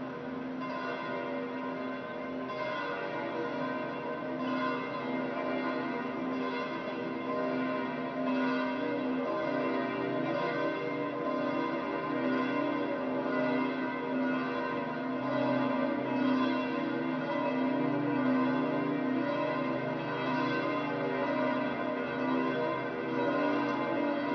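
Church bells pealing: several bells ringing together, their strokes overlapping and the tones hanging on between them without a break.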